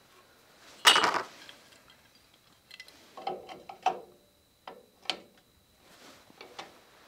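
Scattered metallic clicks and clinks of brake parts and tools being handled at a drum-brake backing plate: one sharp click about a second in, a cluster of clinks around three to four seconds, and two more single clicks shortly after.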